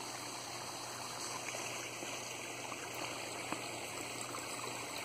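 Small garden pond waterfall, water trickling and splashing steadily.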